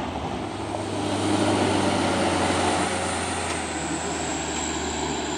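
Heavy truck's diesel engine running under load on a steep climb, growing louder about a second in, with a thin high whine that dips slightly in pitch partway through.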